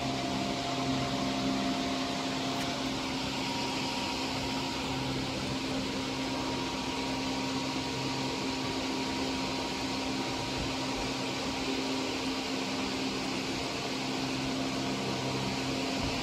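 Cooling fans of a jewelry laser welding machine running, a steady whirring hiss with a low, even hum underneath.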